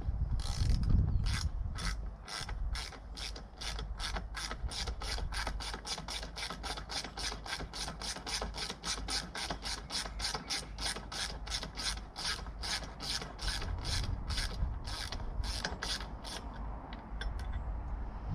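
Hand socket ratchet clicking steadily, about four clicks a second, as a long bolt is wound out of the motorcycle's rear frame; the clicking stops near the end.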